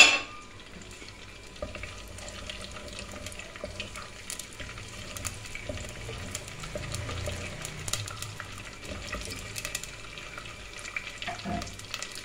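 Whole spices (cumin seeds, black pepper, cardamom, cinnamon sticks and bay leaves) sizzling in hot oil in a clay pot, with frequent small pops, stirred with a wooden spoon. A sharp knock right at the start.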